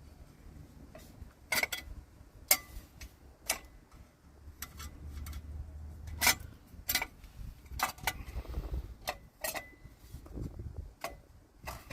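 Irregular sharp metal clicks and taps of bolts and the steel diff guard plate being handled and fitted by hand, about ten over several seconds, over a low rumble.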